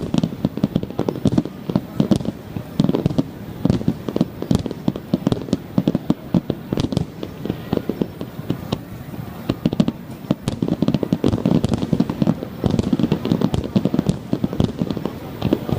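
Aerial fireworks shells bursting in a rapid, dense barrage of overlapping bangs and crackles, with no break.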